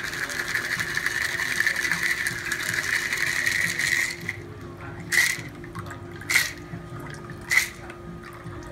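Shaken cocktail poured from a metal cobbler shaker through its built-in strainer into a coupe glass: a steady stream of liquid splashing into the glass for about four seconds, stopping as the pour thins out. Then three short sharp sounds about a second apart as the pour tails off.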